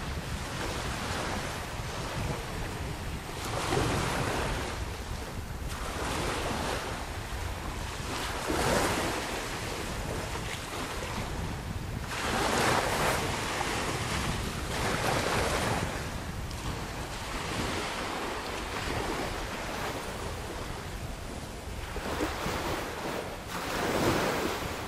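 Small waves washing ashore, surging every few seconds, with wind blowing across the microphone.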